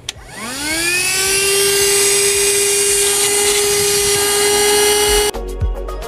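Voroly VR-12SBVC 12-volt car vacuum cleaner switched on with a click. Its motor whine rises in pitch as it spins up over about a second, then runs steady and loud with a rushing hiss. About five seconds in it cuts off and background music takes over.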